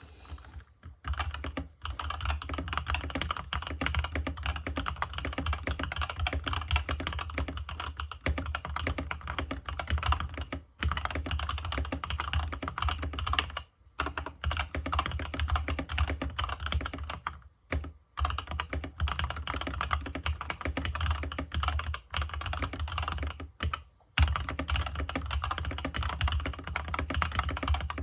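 Fast continuous typing on a LANGTU GK-85 mechanical keyboard with Golden switches: dense clacking keystrokes, with a few short pauses.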